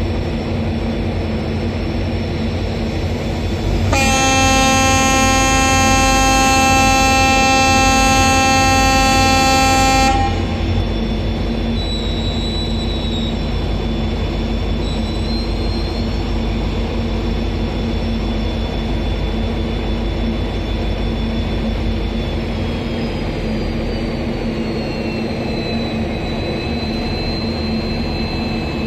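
WDP4B diesel-electric locomotive's 16-cylinder two-stroke EMD engine running with a steady low drone, its horn blowing loudly for about six seconds near the start. A faint high whine falls in pitch about two-thirds of the way through.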